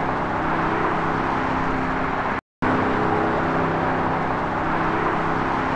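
Steady freeway traffic noise, a continuous rush of many cars with a low hum under it. It drops out to silence for a moment about two and a half seconds in, then resumes unchanged.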